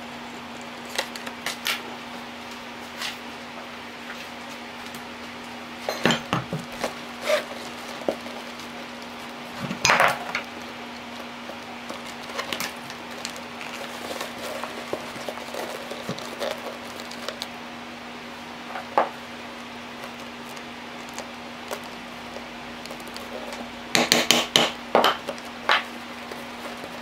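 Scattered knocks and clinks of a leather bag, its metal hardware and tools being handled on a wooden workbench. The loudest come in clusters about six, ten and twenty-four seconds in, over a steady low hum.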